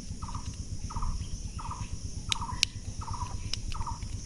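An animal in the background repeats a short call, each note dropping slightly in pitch, about every half second. A few sharp clicks near the middle are hard plastic toy parts being pressed together.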